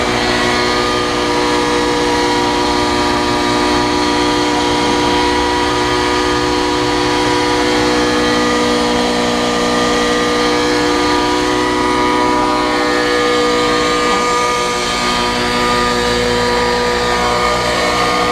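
Helicopter engine running steadily at a constant high speed, giving a loud, even hum with a fixed pitch.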